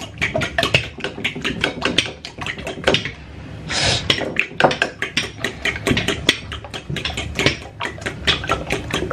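A fork beating eggs in a glazed ceramic bowl: quick, repeated clinks of metal against the bowl, several a second. A short hiss comes about four seconds in.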